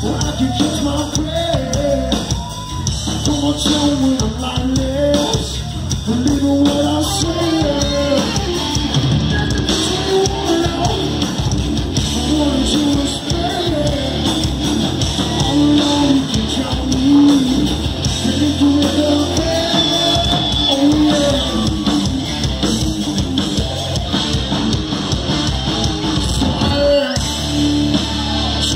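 Live rock band playing: electric guitars, bass guitar and drum kit, with a male singer's vocals over them.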